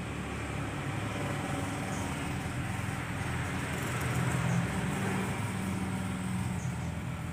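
Steady low mechanical rumble with a hum, swelling slightly about four seconds in.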